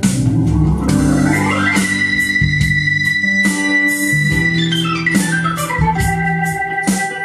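Instrumental music led by an electronic organ over a steady drum beat, played back through a vintage stereo receiver; an organ sweep glides up over the first two seconds and another glides down about four seconds in.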